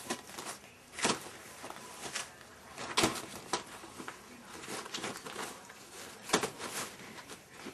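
Border Collie puppy moving about in a wire crate, making scattered knocks and rustles, with a sharper knock about a second in, two around the middle and a cluster near the end.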